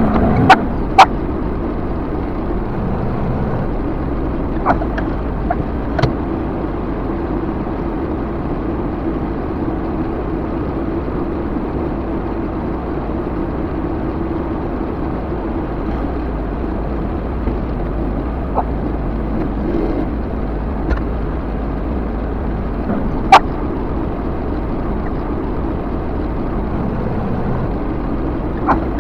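Backhoe engine running steadily as the machine drives, with a few sharp knocks or snaps, the loudest about 23 seconds in.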